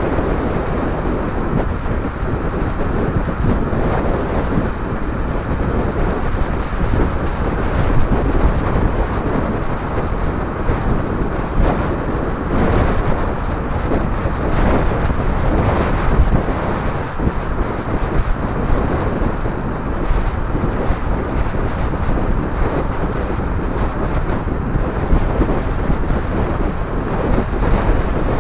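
Wind blowing over the microphone of an electric bike riding at freeway speed: a steady, dense rumble with the noise of surrounding traffic mixed in.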